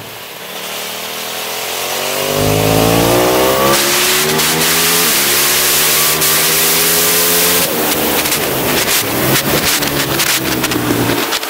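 Aprilia SXV 550 supermoto's V-twin engine accelerating hard, revs climbing steeply, with a quick gear change about four seconds in, then running at high revs until about eight seconds in. The throttle then closes and the note breaks up into an uneven, crackling sound as the bike slows.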